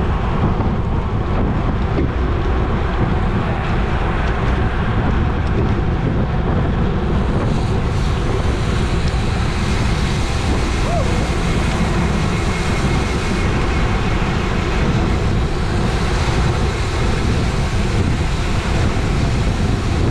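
Steady, loud wind rush buffeting the microphone of a bicycle moving at race speed.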